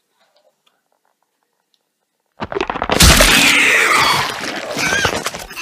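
Near silence, then, about two and a half seconds in, a loud app sound effect of an alien creature bursting out of a body: a noisy rush with high, gliding screeches over it.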